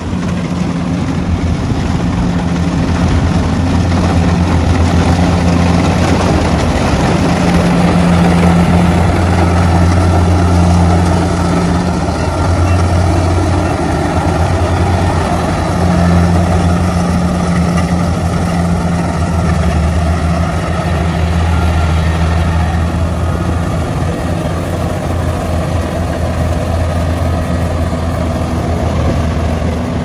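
Rice combine harvester running steadily at work in the field: its diesel engine's low, even hum under a continuous rushing mechanical noise.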